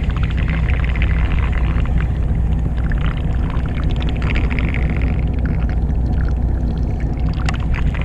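Fishing boat's engine running with a steady low drone, overlaid by light fast ticking from a baitcasting reel being wound in.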